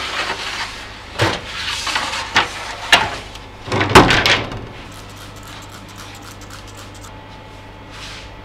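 Knocks and scrapes as loaves of dough on a long wooden peel are pushed into a deck oven, then the oven's metal door slides shut with a loud clatter about four seconds in, the loudest sound. A steady low hum follows.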